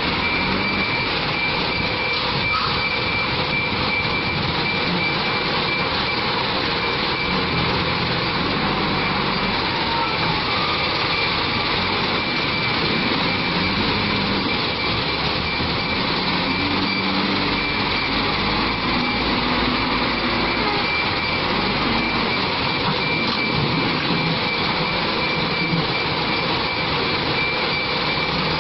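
JCB backhoe loader's diesel engine running hard as the machine works, its note rising and falling with the load. A steady high whine runs over the engine noise.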